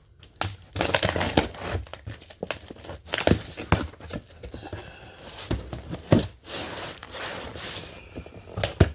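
A shipping box of clothing being opened: packaging tearing and wrapping crinkling in irregular rustles and sharp snaps.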